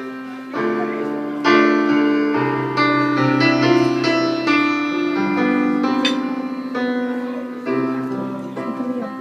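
Instrumental song intro played on a keyboard: sustained piano-like chords that change about once a second over a recurring low bass note.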